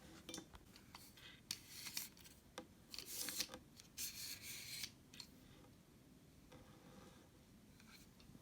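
Scissors cutting: a few short, scratchy snips and slides in quick succession, with light handling clicks.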